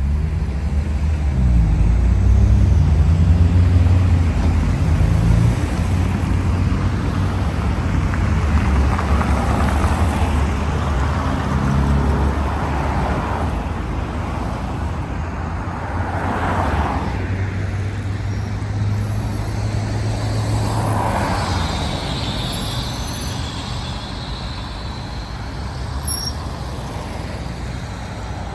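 Road traffic on a city street: a heavy vehicle's engine running close by for the first few seconds, then vehicles passing one after another, each swelling and fading, with a faint whine near the three-quarter mark.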